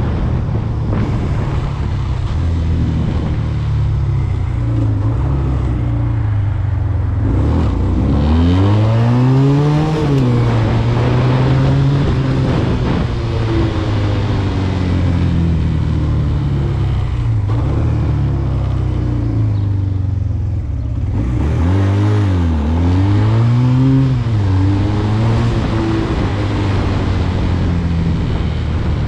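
SMC Barossa 250 quad's 250 cc twin-cylinder engine running as the quad is ridden, heard from on board. The engine note climbs and falls back twice, about eight to ten seconds in and again around twenty-two to twenty-four seconds.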